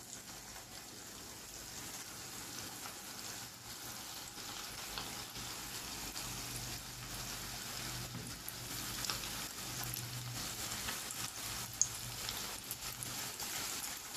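Coated chicken strips deep-frying in hot oil in a frying pan: a sizzle full of small crackles that grows louder as more strips are dropped in, with one sharper pop about twelve seconds in.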